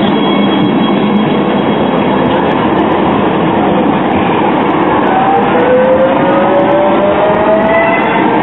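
Low-floor electric tram pulling away at close range: a steady rumble of wheels on the rails, with the traction motors' whine rising in pitch from about halfway through as it gathers speed.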